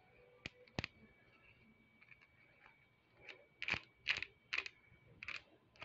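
Plastic Klixx (Wacky Tracks) snake fidget being twisted by hand, its links snapping into place with sharp clicks: two near the start, then a quicker, louder run of about five in the second half.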